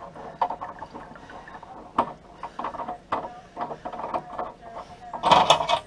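Irregular metal clicks and scraping rattles of a tool working on a chrome kitchen wall tap being screwed back together after a washer change, with a louder clatter about five seconds in.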